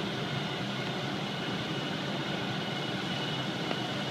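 Steady rumble and hiss of fire apparatus running its pumps to feed hoses with water.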